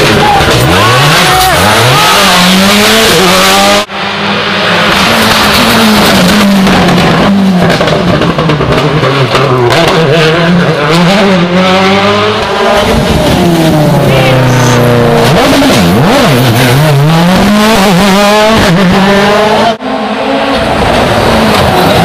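Rally cars at racing speed, their engines revving hard and dropping back again and again as they accelerate, change gear and brake through the corners. Three separate passes, each cut off sharply, one about four seconds in and another near the end.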